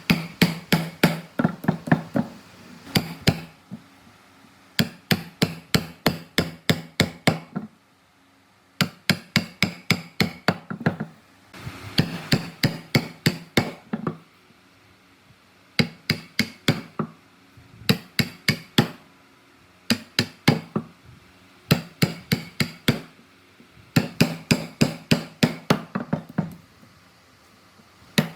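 Hammer blows in quick runs of about four strikes a second, each run lasting a few seconds and broken by short pauses; every blow has a brief low ring.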